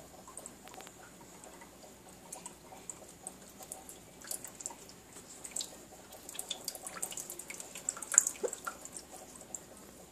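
Cat lapping water from a sink: quick, irregular small wet clicks, loudest about eight seconds in.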